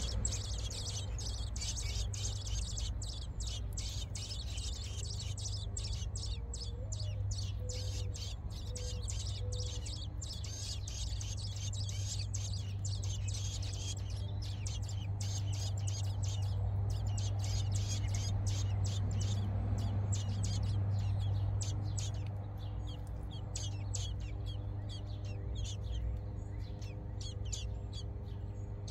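American robin nestlings begging: a fast, continuous stream of short, high-pitched cheeps that thins out toward the end. Under it runs a steady low hum.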